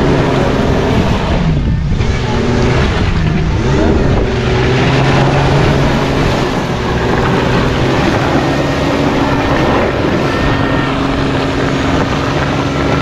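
Jeep Cherokee KJ's engine working hard as the SUV pulls through deep mud, its revs dipping and rising a few times in the first seconds and again near the end, with a noisy haze over it.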